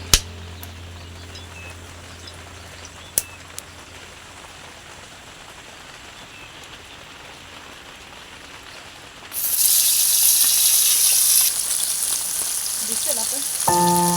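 Hot oil sizzling loudly in a frying pan, starting suddenly about nine seconds in after a quieter stretch with a low hum and a couple of sharp clicks. It is the sound of fish frying.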